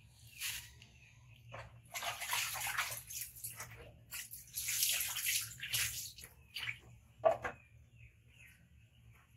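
Water splashing in a plastic basin as a hand dips into it and scoops it, in several bursts, followed by one short sharp click near the end.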